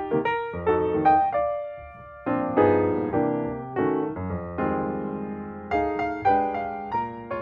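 Background music on piano: notes and chords struck one after another, each dying away.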